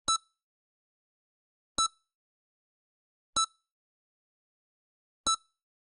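EKG heart monitor beeping: four short, identical beeps, one about every one and three-quarter seconds, with silence between them. Each beep marks one heartbeat.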